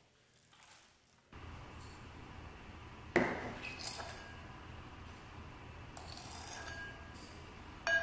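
Glass mixing bowl and metal spoon clinking on a stainless-steel kitchen scale. There is a sharp, ringing clink about three seconds in, lighter clinks and taps as sugar is spooned into the bowl, and another ringing clink near the end.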